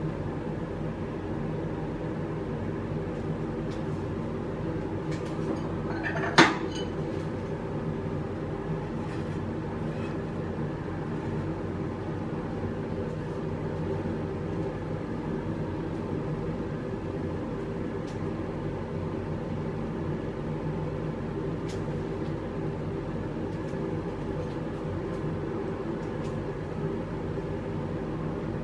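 A steady low hum with a few faint crackles from the egg-in-toast frying in butter in the pan. One sharp knock about six seconds in.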